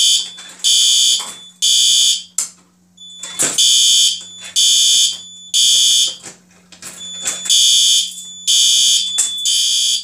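Fire alarm horn sounding the temporal-3 (code 3) evacuation pattern: three short, loud, high-pitched blasts, a pause, then three more, repeating. A low steady hum from the alarm panel runs underneath.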